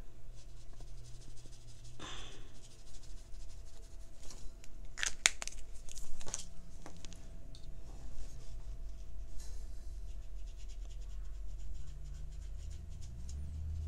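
Faint scratching and rubbing of a brush tip on paper, with a brief scrape about two seconds in and a few sharp clicks and taps around five to six seconds in, over a low steady hum.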